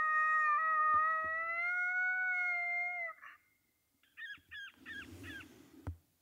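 Electronic predator call playing a coyote howl: one long, slightly rising note lasting about three seconds, then, after a short gap, a quick run of five yips.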